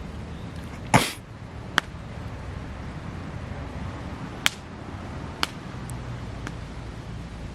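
Wood fire crackling, with about six sharp, separate pops; the loudest and longest comes about a second in.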